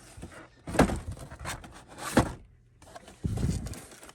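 Packaged die-cast cars being moved and rummaged through in a storage box: two sharp knocks, about one and two seconds in, with light clattering between them and a duller thump near the end.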